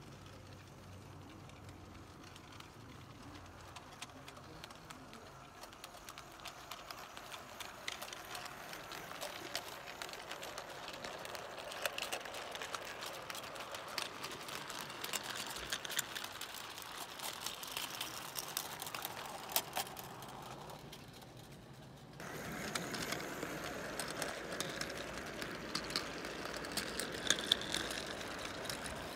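O gauge model goods train rolling on garden track: the metal wheels of the wagons make a dense run of fine clicks and rattles over the rails, building up as the train comes closer, then a sudden step louder about three-quarters through.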